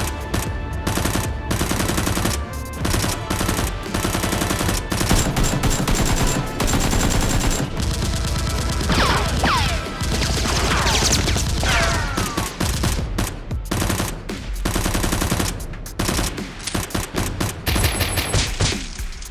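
Rapid gunfire sound effects: continuous bursts of automatic fire and volleys of shots, with a few falling whistles about halfway through.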